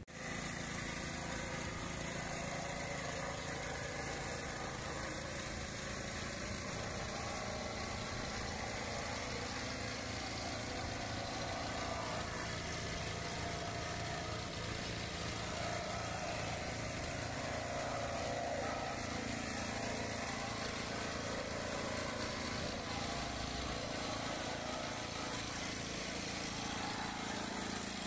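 Small air-cooled engine of a plate-type concrete surface vibrator running steadily as the plate is worked across freshly poured wet concrete.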